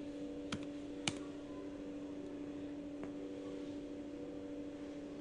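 Two computer keyboard keystrokes about half a second apart within the first second or so, and a fainter key click a couple of seconds later, over a steady low hum.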